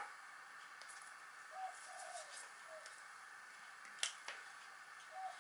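Faint cooing of a bird: a few short, low notes in small groups. Two sharp clicks about four seconds in, from hands handling the small plastic servo case.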